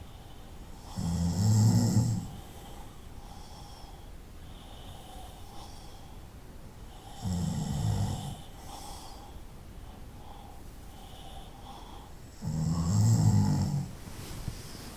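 A person snoring: three loud, low-pitched snores about five to six seconds apart, each lasting about a second, with softer breaths between.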